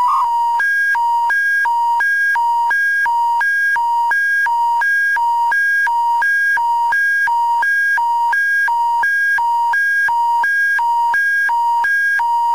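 Emergency alert attention signal: an electronic warble that alternates steadily between a low and a high tone, switching about three times a second, meant to announce an emergency public warning bulletin.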